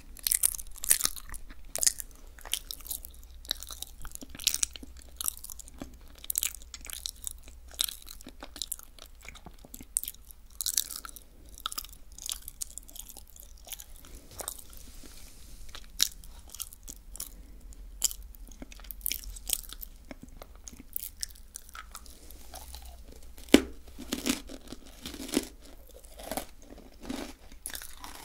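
Close-miked chewing of crunchy sweets: an irregular run of sharp crunches, with one loudest crunch about two-thirds of the way through.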